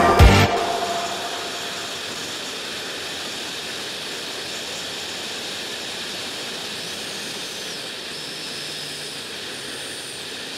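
Background music fades out in the first second or two, leaving a steady rushing hiss of wind and road noise from a moving motorcycle.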